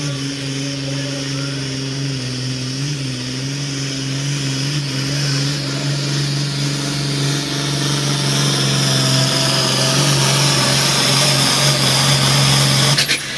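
Hot farm pulling tractor's diesel engine running hard under load while dragging a weight-transfer sled: a heavy, steady engine note with a high whine over it. It grows louder as the tractor comes closer, then cuts off sharply near the end.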